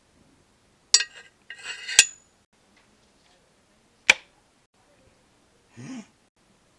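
Kitchen foley: clattering clinks of utensils and dishes about a second in, ending in a ringing metal clink, then a single sharp knock about four seconds in, and a short low vocal grunt near the end.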